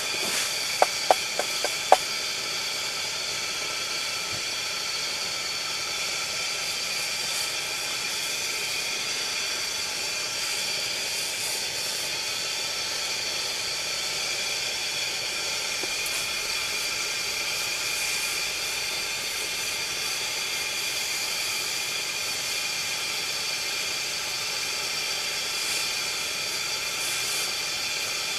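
Pressure burner of a kerosene/gas heater hissing steadily, with faint whistling tones riding on the hiss. About a second in, a few sharp clicks cut through it.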